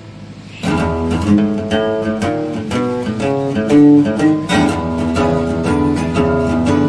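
Background music: a faint held chord fades out, then about half a second in a plucked guitar comes in, playing a quick run of separate notes.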